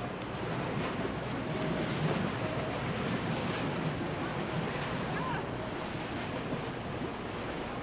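Steady wind on the microphone over the wash of water and boats running on the waterway, an even rushing noise with no clear separate events.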